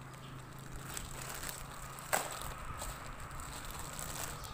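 Plastic bags crinkling as new hydraulic seals and O-rings are handled and unwrapped, with one sharp click about two seconds in.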